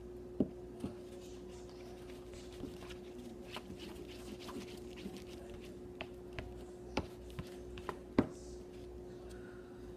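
Scattered clicks and knocks of objects being handled, the loudest about half a second in and again near the end, over a steady low electrical hum.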